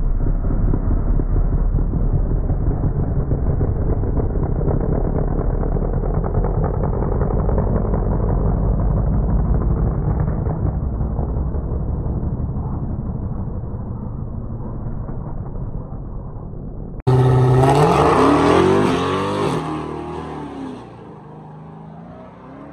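Dodge Charger on drag slicks idling at the start line with a deep, steady rumble. About 17 seconds in, a sudden cut brings louder engines revving up hard with rising pitch as the cars launch, then fading into the distance.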